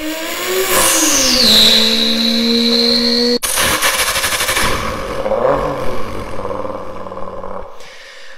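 Toyota Supra exhaust in two clips. First the engine revs up and holds at high revs with a steady high whine. After a sudden cut, a second exhaust runs with rapid crackling pops, which fade near the end.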